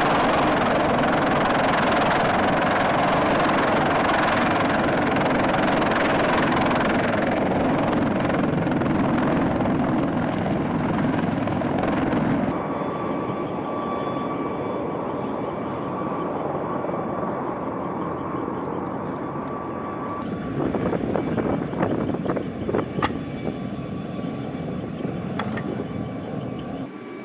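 CH-53E Super Stallion heavy-lift helicopter hovering low, its three turbine engines and seven-blade main rotor making a loud, dense noise. About halfway through it gives way to a quieter, steady background noise with a thin steady whine. Near the end come scattered knocks and clatter of gear being handled.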